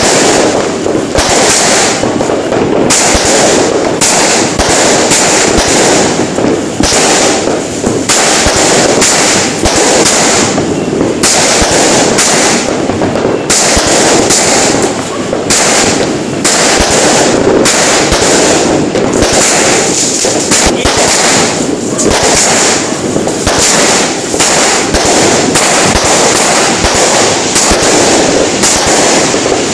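Aerial fireworks bursting in a loud, unbroken barrage of bangs and crackling.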